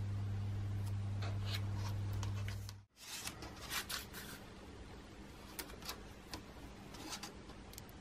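A low steady drone for about the first three seconds that cuts off abruptly. Then scattered light clicks and rubbing as fingers handle a plastic terminal-block connector and multimeter probes are set into its terminals.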